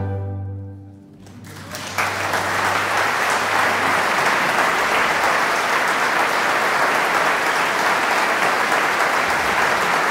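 The last held chord of a violin-and-cello piece rings and fades away within about a second and a half. About two seconds in, audience applause breaks out and goes on steadily.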